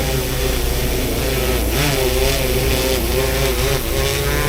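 Drone propellers whining as the drone comes in to land, their pitch wavering up and down as the motors adjust, over a steady low rumble.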